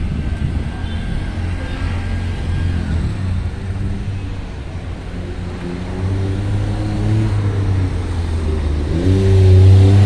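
Motor vehicle engine running close by in street traffic, growing louder and rising in pitch near the end as it accelerates.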